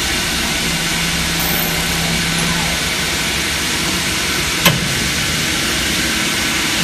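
CNC lathe with a bar feeder running while turning brass fittings: a steady machine noise with a hum for about two seconds near the start, and a single sharp clank about two-thirds of the way through.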